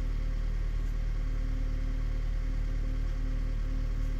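Steady low mechanical hum with a faint higher tone that comes and goes several times.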